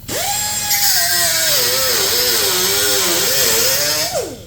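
A small cutoff-wheel tool spins up to a high whine, then cuts sheet metal with a hissing grind, its pitch dipping and wavering as the disc loads in the cut. It winds down with a falling pitch near the end.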